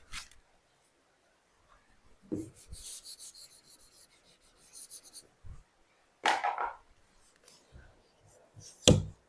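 Writing by hand: a run of quick, scratchy strokes about two to five seconds in, then a louder scrape and a sharp knock near the end.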